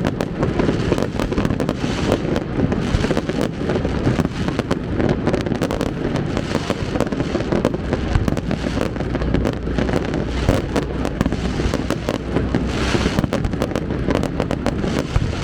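A fireworks display: a rapid, unbroken barrage of bangs and crackling with no pause.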